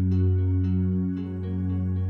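Calm new-age style background music: a held low drone under an even run of notes, about three to four a second.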